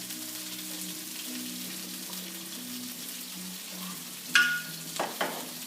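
Flour-dredged chicken pieces frying in olive oil and butter in a pan, a steady sizzle. About four seconds in there is one sharp, briefly ringing clank, followed by two smaller knocks.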